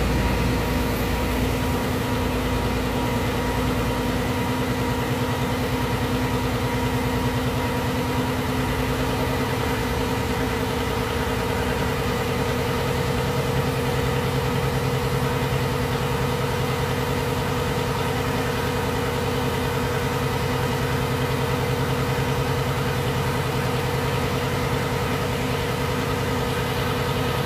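Hino truck's diesel engine idling steadily while it warms up.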